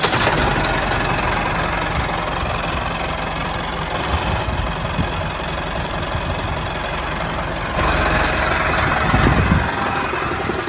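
Tractor engine running steadily, growing a little louder about eight seconds in.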